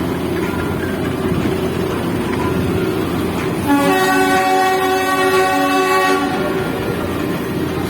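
Darjeeling Himalayan Railway toy train running with a steady rumble, sounding one long horn blast of about two and a half seconds around halfway through.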